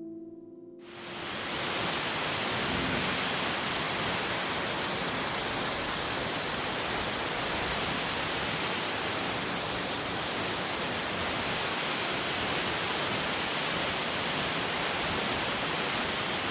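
A waterfall rushing: a steady, even roar of falling water that comes in about a second in as piano music fades out.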